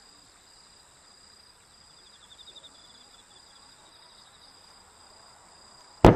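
Insects chirping steadily in high, thin tones, with a brief pulsing trill about two seconds in. Right at the end a single loud firework burst goes off and rumbles away.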